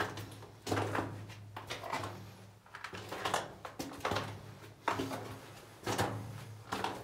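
Footsteps crunching and scuffing on the rock and gravel floor of a mine tunnel, roughly one step a second, echoing off the close walls, over a steady low hum.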